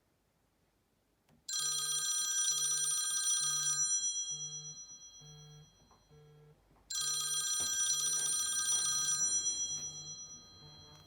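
Telephone bell ringing twice, each ring about two seconds long and fading away, for an incoming call. A low tone pulses about once a second underneath.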